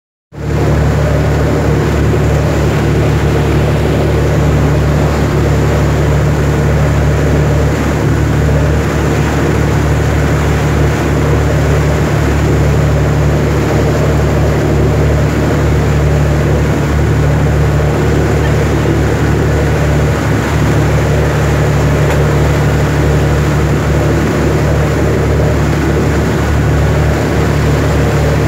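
A cruise boat's engine, heard from on board, running with a loud, steady low drone under a constant rushing noise as the boat moves along.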